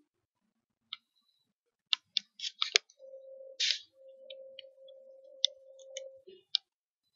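Spoon clinking and scraping against a pan while stir-frying chicken pieces in ginger-garlic paste: a run of sharp clicks, a short scrape, then more scattered clicks. A steady mid-pitched hum runs for about three seconds in the middle and drops lower just before it stops.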